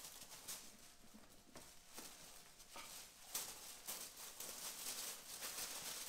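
Polishing rag rubbed by hand over the freshly painted moped bodywork, a faint swishing in irregular strokes that run together into one longer stretch in the second half.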